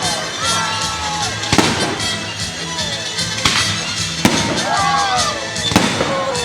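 Festival fireworks bursting overhead, a sharp bang every second or two, over music with a singing voice played through loudspeakers.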